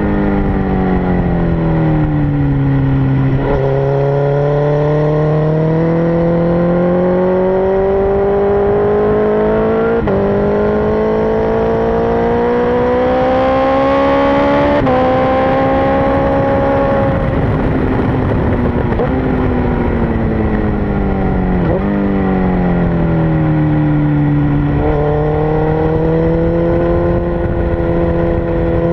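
2006 Suzuki GSX-R1000's inline-four engine at racing pace: its pitch slides down while slowing for a corner in the first few seconds, then climbs hard under acceleration with sudden drops at upshifts about 10 and 15 seconds in. It falls again while braking in the later part and climbs once more near the end, over a steady rush of wind.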